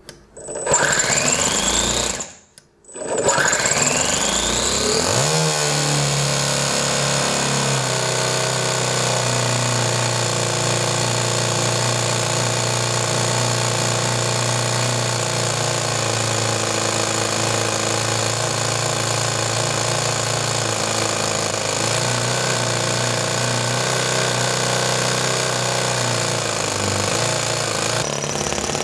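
Toyan single-cylinder four-stroke model engine started on its electric-start base. The starter whirs up twice, rising in pitch, with a short gap between. The engine catches about five seconds in and then runs steadily with a fast, even beat.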